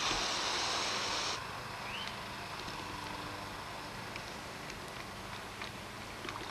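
Water from a garden hose nozzle spraying into a plastic dog bowl, a steady hiss that cuts off suddenly after about a second and a half as the hose is shut off. Then a puppy laps water from the bowl, heard as faint scattered ticks.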